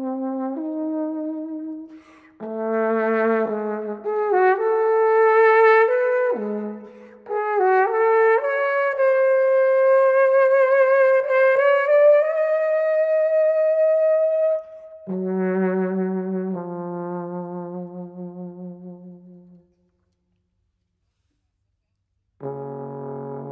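Solo trombone playing held notes, including a long high note that slowly slides upward with a wavering vibrato. A low note then fades away, there are about three seconds of silence, and a low note begins again near the end.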